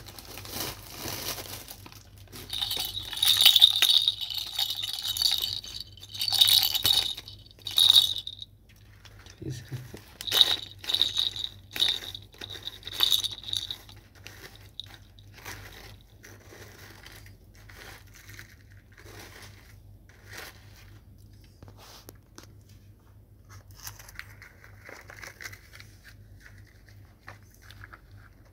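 Plastic toy excavator bucket scraping and digging through dry soil and clods, in repeated bursts of crunching and grating that are loudest in the first half; later only light scattered crumbles and ticks of dirt and plastic.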